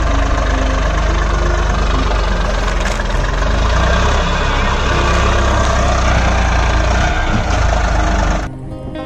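Eicher 380 tractor's diesel engine running steadily as the tractor, pulling a loaded trolley, tries to drive out of the soft silt it has sunk into. The engine cuts off abruptly about eight and a half seconds in, replaced by music.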